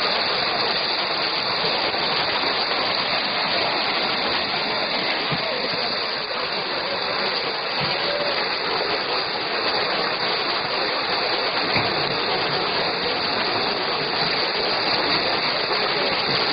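A dense school of piranhas in a feeding frenzy, thrashing at the surface: steady, continuous churning and splashing of water.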